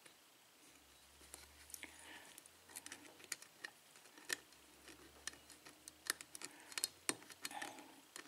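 Faint, irregular metallic clicks and light scrapes of a lock pick working the pins of a five-pin tumbler cylinder with a Schlage keyway, single-pin picking from the back pin under tension.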